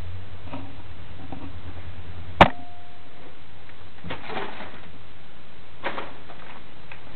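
Guinea pigs shuffling in wood-shavings bedding: a few short rustles over a steady hiss. A low hum stops at one sharp click about two and a half seconds in, followed by a short faint tone.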